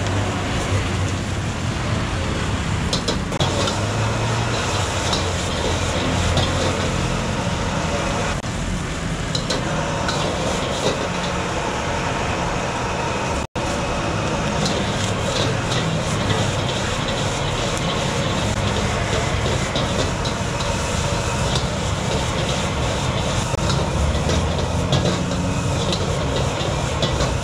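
Gas wok burner running steadily under a wok while a metal ladle scrapes and clanks against the pan as rice is stir-fried. The sound cuts out for an instant about halfway.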